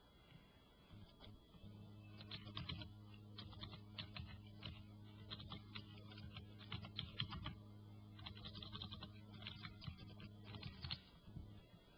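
Computer keyboard typing: a run of quick, irregular key clicks. A low electrical hum sounds underneath and stops near the end.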